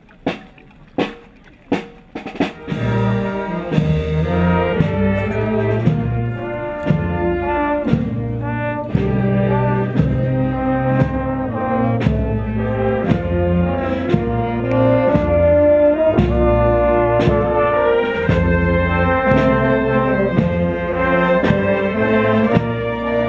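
Brass band music. A drum beats alone at about two strokes a second, then trumpets and trombones come in about two and a half seconds in and play a tune over the steady drum beat.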